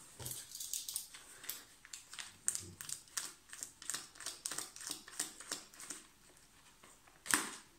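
Newspaper wrapping rustling and crinkling in short, irregular scratches and ticks as packing tape is cut and picked off the parcel with a small blade, with a louder rustle about seven seconds in.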